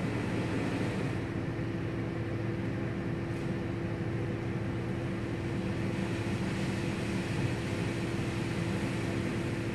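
PDQ ProTouch tandem friction car wash running on a car in the bay: a steady machine hum with a constant low tone, under the hiss of water spray and spinning cloth brushes.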